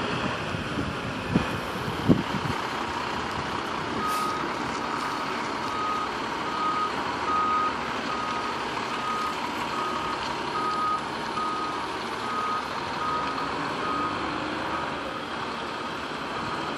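Fire engine reversing into its firehouse: its backup alarm beeps about once every 0.8 s from about four seconds in, over the steady running of the truck's engine. Two sharp knocks, about a second apart, come one and two seconds in.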